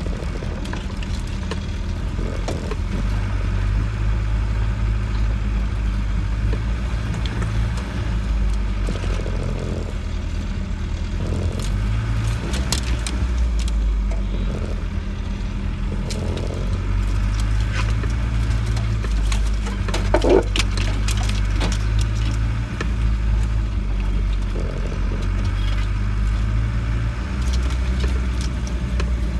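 Land Rover 90 heard from inside its cabin, driving slowly along a rutted muddy track: a low engine drone that rises and falls in pitch as the throttle changes, with scattered knocks and rattles from the body over the ruts. A brief, louder squeak about two-thirds of the way through.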